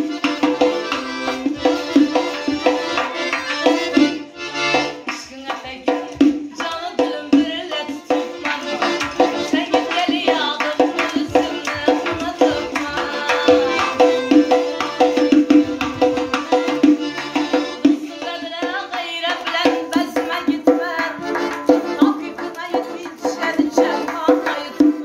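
Traditional Central Asian folk music: an accordion playing a melody over a quick, steady hand-drum rhythm.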